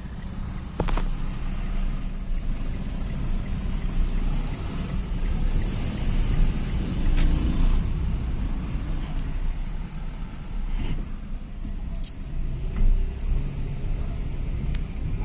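Car running along a street, heard from inside the cabin: a steady engine and road rumble, with a sharp click about a second in and a few fainter knocks later.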